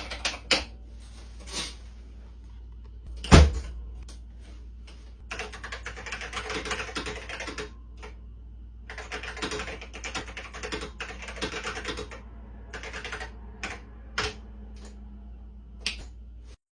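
Mechanical keyboard of a vintage 1980s home computer being typed on: scattered single keystrokes, then fast runs of clacking keys, with one loud key strike about three seconds in. A low steady hum runs underneath.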